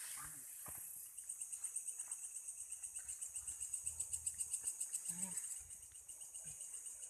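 An insect chirping in a fast, even pulse of about six chirps a second. It grows louder about a second in and eases off near the end.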